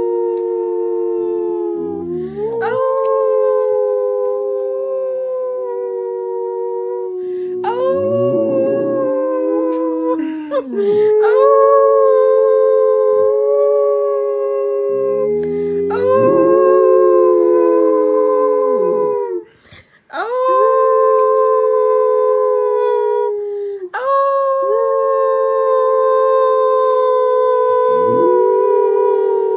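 Pit bull-type dog howling in long drawn-out notes, breaking off every few seconds with the pitch sliding down, over a steady held tone.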